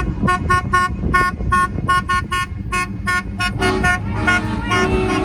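Car horns honking: a rapid string of short toots, then longer, lower horn blasts held from about three and a half seconds in, over the low rumble of traffic.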